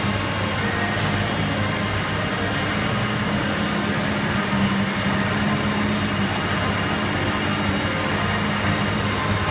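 Tornos Deco 2000/10 CNC sliding head lathe running under power: a steady, unbroken machine noise with a low hum and a thin high whine, with no change in speed or load.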